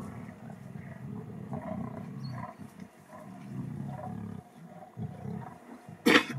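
Lions growling low while feeding together on a kill, with a short, sharp loud sound about six seconds in.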